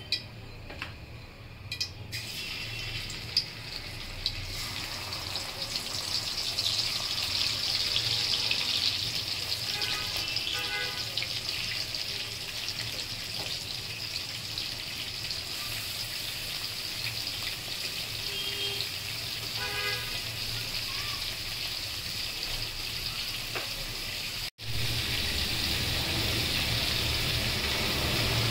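Whole turmeric-coated prawns sizzling in hot oil in a wok, a steady frying hiss that swells a few seconds in, after a few light clicks at the start. The sizzle breaks off for an instant near the end.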